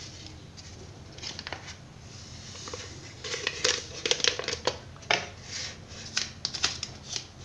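Paper sachet of baker's yeast being handled and opened over a bowl: a run of short, irregular crinkling crackles, busiest in the second half.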